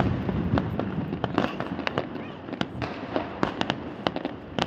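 Fireworks going off: a fast, irregular run of sharp cracks and pops.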